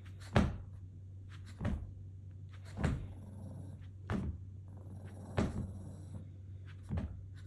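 A series of six dull knocks at an even pace, about one every second and a quarter, over a low steady hum.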